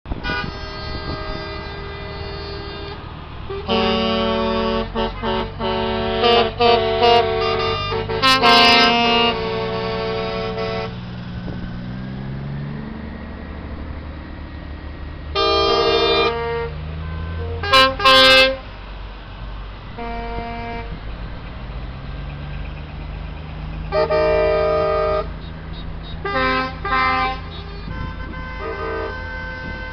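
Truck air horns blasting again and again, some long and some short, as heavy prime movers drive past in a convoy. Under the horns their diesel engines drone and twice rise in pitch as the trucks pull through the gears.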